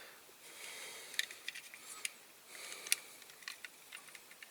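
Faint, scattered small clicks and ticks of metal tweezers handling a tiny paper number plate against a diecast model car, with a few sharper clicks among them.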